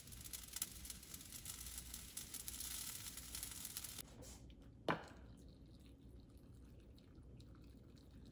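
Pickle brine of water, sugar and vinegar boiling hard in a saucepan: a dense crackling, bubbling hiss that stops abruptly about four seconds in. A single sharp knock follows, then faint dripping and trickling as the hot brine is poured into glass jars.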